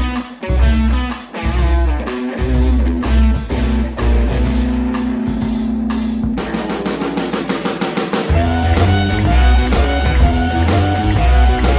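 Background rock music with guitar and drums. The drum strokes come faster in a short build about six seconds in, and a fuller beat with heavy bass comes in past the eight-second mark.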